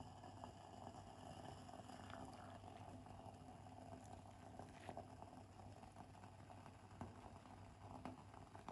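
Faint simmering of broth in a clay hot-pot on a portable gas burner, with a few soft taps and clicks as meat slices are lowered in with chopsticks.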